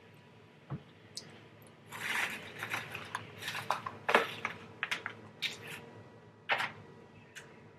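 Plastic takeout containers and a small lidded sauce cup being handled, giving a quick run of sharp clicks and crackles. A single soft thump comes just before, under a second in.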